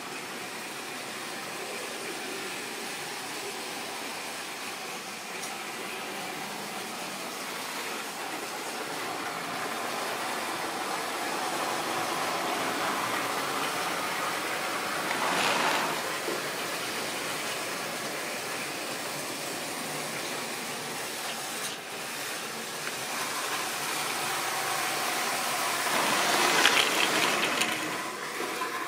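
Model railway trains running: the steady whirr of small electric locomotive motors and the rattle of wheels on the rails. The sound swells twice as a train passes close, briefly about halfway through and for longer near the end.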